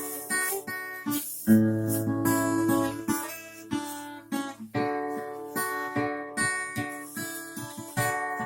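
Acoustic guitar strummed in a steady rhythm of chords, with no voice yet.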